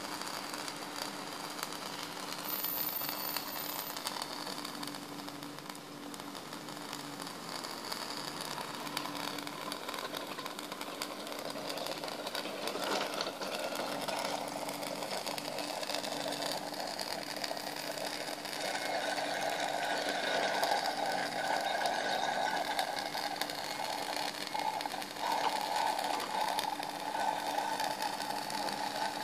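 Homemade tin-can pop-pop boat running, its candle-heated boiler and copper tubes making a fast, steady putt-putt ticking. A little louder in the second half.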